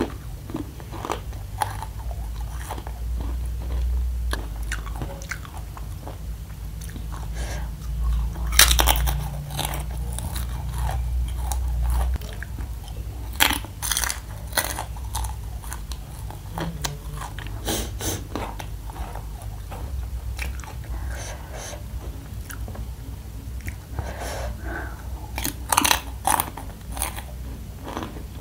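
Close-miked chewing of crispy fried spicy macaroni, with several sharp, louder crunches scattered among the steady chewing.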